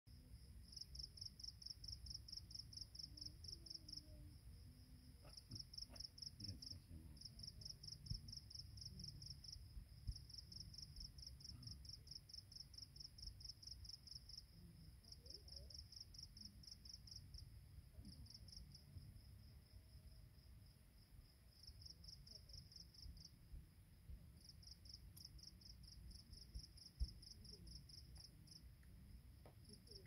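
Grass insects, cricket-like, singing a high, rapid pulsed trill that comes in runs of one to three seconds with short breaks between them. A faint low rumble lies underneath.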